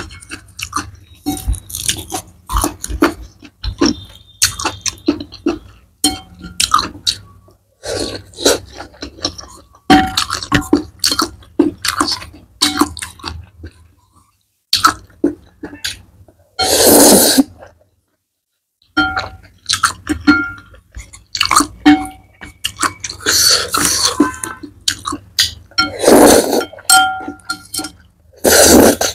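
Close-up eating sounds of a mouthful of sauce-coated noodles: wet chewing and smacking with many small clicks, broken by a few longer, louder slurps of noodles.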